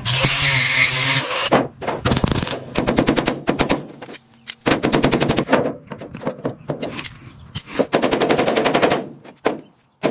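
Rapid mechanical hammering, many sharp strikes a second, in several bursts of about a second each with short pauses between them, typical of an air-powered tool at work.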